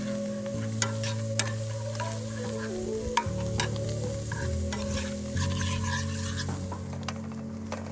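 Butter sizzling in a cast iron skillet while a metal spoon stirs and bastes, with several sharp clinks of the spoon against the pan, over soft background music of held chords.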